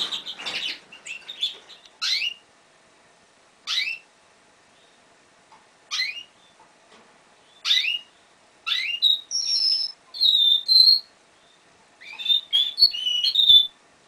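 Young male canary, five months old, giving single short sharp chirps every couple of seconds, then breaking into phrases of high whistled notes and trills in the second half.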